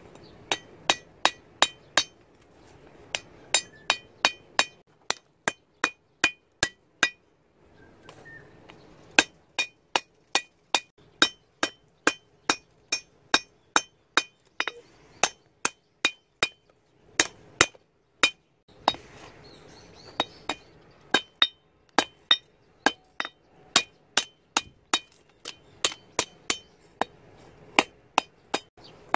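Hand hammer striking red-hot plow steel on an anvil while forging a knife blade: sharp ringing blows, about three a second, in runs with short pauses between them.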